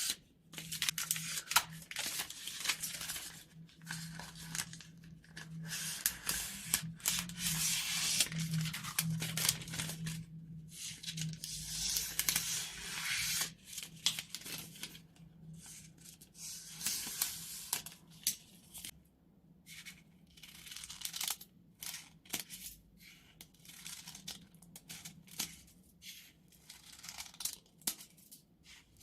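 New scissors sliding through sheets of paper and film in long single-motion cuts, with a dry rasping hiss. The cuts become shorter toward the end, with quick clicks of the blades closing.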